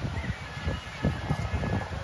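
Outdoor city street ambience, with wind buffeting the microphone in irregular low thumps.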